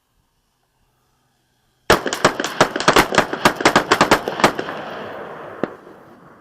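Several guns firing at once in a rapid, ragged volley, starting about two seconds in. The shots echo and trail off, with one last shot near the end.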